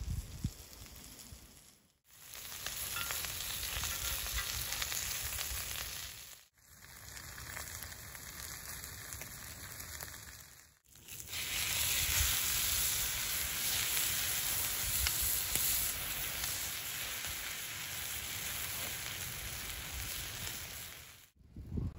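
Red peppers sizzling on a grill pan over a wood fire, a steady hiss that drops out briefly several times and is louder over the second half.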